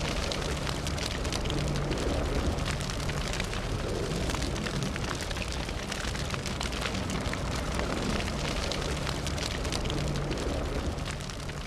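Fire burning: a steady low rush of flame with dense, frequent crackles and pops, getting a little quieter near the end.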